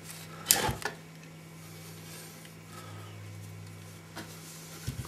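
Handling noise from a boiled-out goat skull and horns being lifted and turned on a carpet: a short rubbing scrape about half a second in, then a faint click and a quick double knock near the end.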